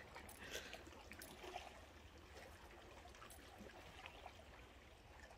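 Near silence: a faint steady outdoor background hiss with a few soft, scattered ticks.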